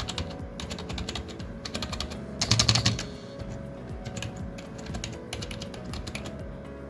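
Typing on an A4Tech Bloody Q135 membrane gaming keyboard: a quick run of key clicks, with a denser, louder flurry of keystrokes about halfway through.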